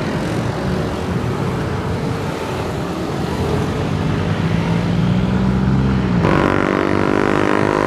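City road traffic, with cars and motorcycles passing close by and a steady engine hum. About six seconds in, a steadier engine tone with many overtones comes in suddenly.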